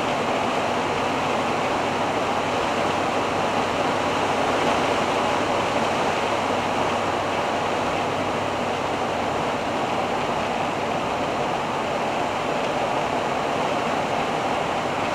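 Steady road and wind noise inside the cab of a Fiat Ducato-based motorhome cruising at motorway speed, about 88 km/h, with a faint low hum from the drivetrain.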